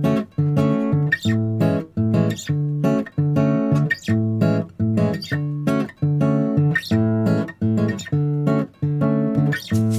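Background music: acoustic guitar strumming chords in a steady rhythm, about two strokes a second.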